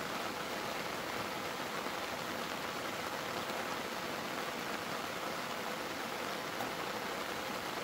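Steady rain falling, an even hiss of drops without a break.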